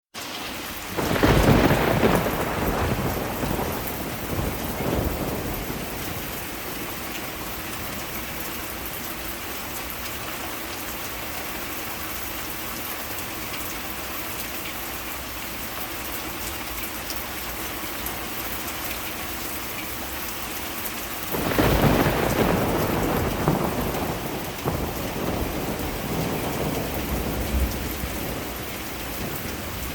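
Heavy rain falling steadily, with two rolls of thunder, one about a second in and a longer one about two-thirds of the way through.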